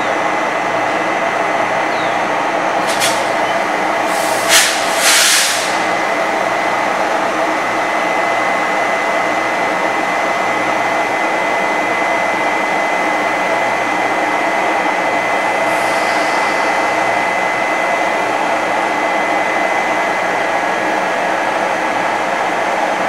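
Taiwan Railway E200-series electric locomotive standing with its cooling blowers running, a steady whirring drone with a faint high whine. Short hisses break in about three seconds in and again around five seconds, the loudest moment.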